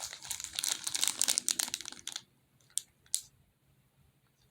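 Plastic packaging crinkling and crackling as it is handled for about two seconds, then two short clicks.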